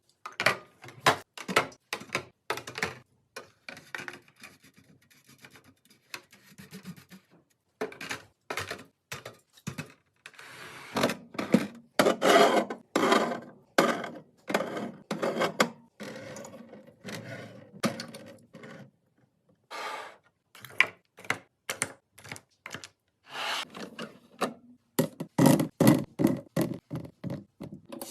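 Food containers and bottles being set down and slid into place on fridge shelves: a long run of irregular thunks, clicks and rubs, denser and louder in a few stretches.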